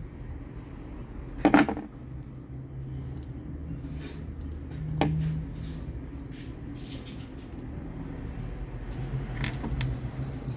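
Needle-nose pliers set down on a wooden tabletop with a single knock about one and a half seconds in. After it come a smaller click and faint clicks and rustles of fingers working a steel leader wire and a small fishing hook.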